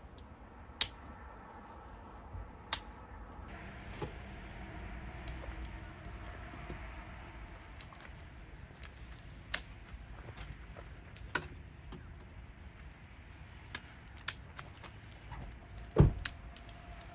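Scattered sharp clicks and knocks of objects being handled, with one heavier thump near the end.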